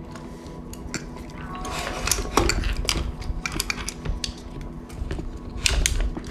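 Metal and plastic camera-rig hardware clicking and clacking as a cinema camera on a quick-release plate is unlocked and slid out of the rig, with a sharper knock about two and a half seconds in and more near the end.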